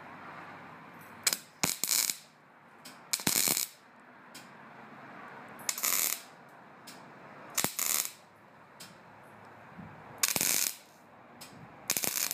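MIG welding arc crackling in a series of short bursts, each under half a second, one to three seconds apart, as in tack welding.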